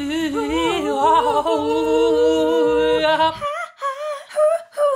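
A man and a woman singing a drawn-out, wavering tune a cappella in two parts. About three and a half seconds in it changes abruptly to a higher voice humming over finger snaps.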